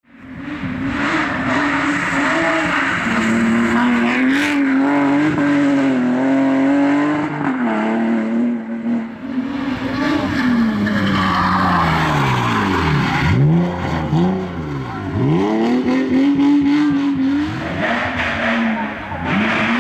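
BMW E30 rally car's engine driven flat out. The engine note repeatedly climbs through the revs and drops back at gear changes and corners, with several deep swooping falls and rises about two-thirds of the way through.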